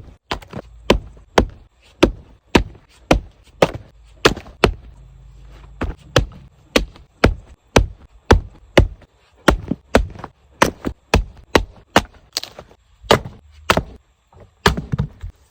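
Split firewood logs knocked against each other, a sharp wooden knock repeated about twice a second.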